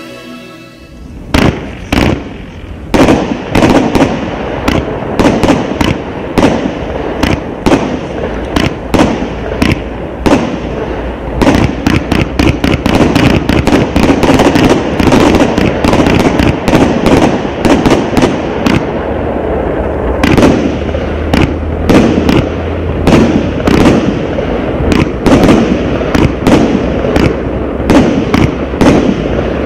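Son of Zeus 108-shot firework cake firing: a rapid, unbroken string of loud bangs, several a second, starting about a second in.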